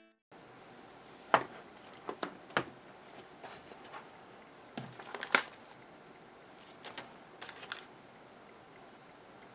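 Scattered small clicks and knocks, as of objects being handled and set down, in a few clusters with the sharpest about a second and a half and five seconds in, over faint steady room hiss.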